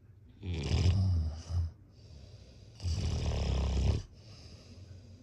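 A sleeping person snoring: two loud rasping snores about two seconds apart, the first ending in a short extra snort, with faint breathing between and after.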